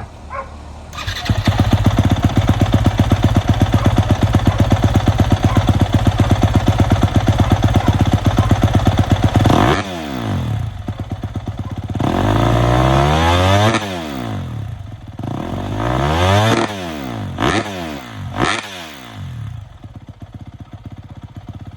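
2024 Yamaha YZ250F's single-cylinder four-stroke engine running steadily with an even pulse, then revved from about ten seconds in with several throttle blips, the pitch rising and falling each time.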